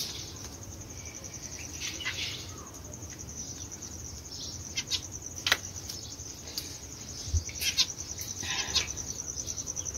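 Steady, high, fast-pulsing insect chirring, with scattered short chirps from small caged birds and a few sharp clicks.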